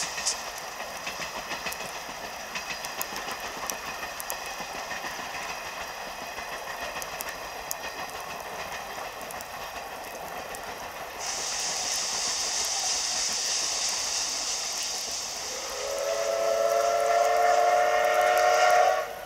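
C12-class steam locomotive running past with a steady hiss of steam and scattered clicks from the running gear and rails. About eleven seconds in, a louder, higher hiss of steam starts. Near the end the steam whistle gives one long blast that rises slightly as it opens, then cuts off abruptly.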